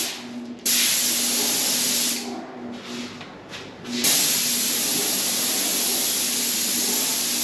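Graco 695 airless paint sprayer's gun spraying paint on wood trim: a loud, even hiss that stops briefly as the trigger is let go just after the start, then again for about two seconds in the middle with a few short flicks of spray, before running on steadily. A faint steady low hum sits underneath.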